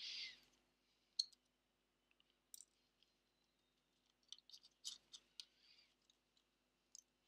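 Faint, scattered small clicks of a precision screwdriver and tiny screws being handled on an iPhone 4 midframe and a plastic parts tray, with a quick cluster of clicks about four to five seconds in. A short soft hiss at the very start.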